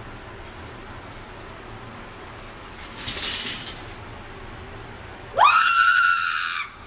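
A high-pitched scream that shoots up sharply in pitch about five and a half seconds in and is held for over a second before tailing off, over a steady background hiss, with a brief hissing burst a couple of seconds earlier.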